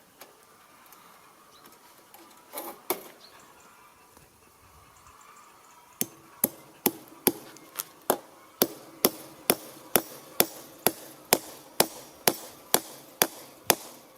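Sharp metallic taps from working fence wire with hand tools: a couple of knocks, then about six seconds in a steady run of ringing metal-on-metal clicks, about two a second.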